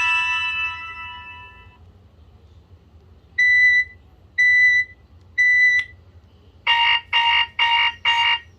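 BlackBerry Curve 8520 phone tones: a chime rings out and fades over the first two seconds. Then come three short beeps about a second apart, then four quicker buzzy pulses.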